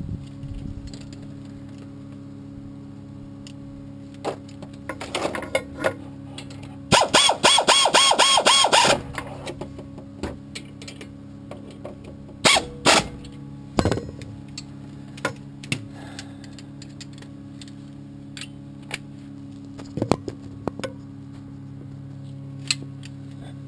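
Hand wrenches working the bolts of a car's front disc brake caliper: scattered metallic clicks and knocks of tools on the bolts, with a two-second run of rapid, even clicking about seven seconds in.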